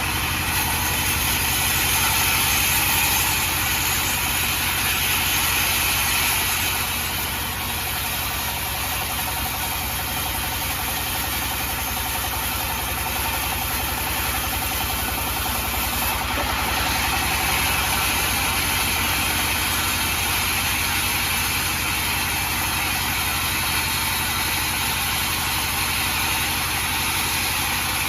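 A sawmill running steadily as its saw, driven by an engine, cuts through a mahogany log, with a low pulsing under a continuous hiss that swells and eases as the cut goes on.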